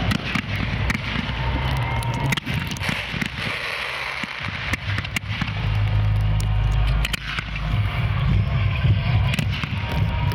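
Fireworks display shells launching and bursting in quick succession: a dense run of booms and sharp cracks over a low rumble.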